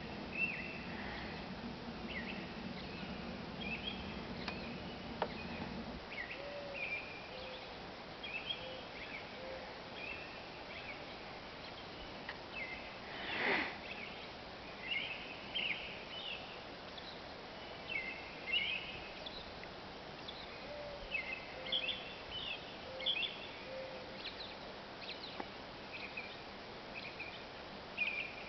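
Dawn chorus of songbirds: many short chirps and trills keep overlapping, with a few softer, lower calls and one louder call about halfway through. A faint low hum underneath stops about six seconds in.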